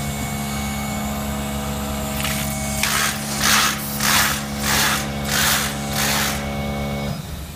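Semi-automatic capsule filling machine's motors running with a steady, pitched hum that cuts off about seven seconds in. Over the hum, about six rhythmic swishing strokes, roughly one and a half a second, as a hand rubs across the stainless-steel capsule ring.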